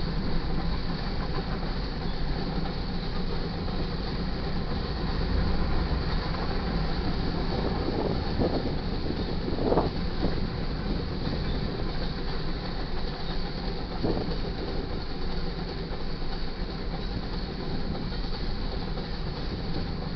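Freight train cars rolling past on the main line: a steady rumble of steel wheels on rail, with a few brief sharper sounds near the middle.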